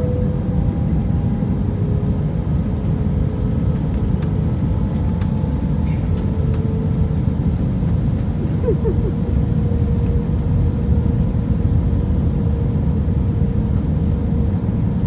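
Airbus A321-200 cabin noise on approach, heard from inside the cabin over the wing: a steady rumble of airflow and jet engines with a steady mid-pitched hum running through it.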